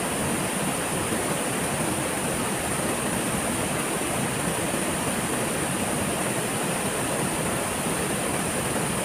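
Steady rush of a waterfall, an even unbroken noise.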